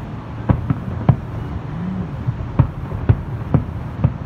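Aerial fireworks shells bursting: about seven sharp booms at irregular intervals over a steady low rumble.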